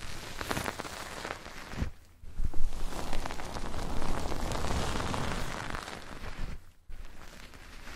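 Close-miked crackling and scratching on an ASMR ear microphone, a dense run of small clicks and rubbing noise, broken by short pauses about two seconds in and near the end.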